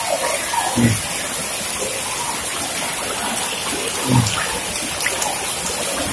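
Heavy rain pouring steadily onto flooded paving, a constant even hiss.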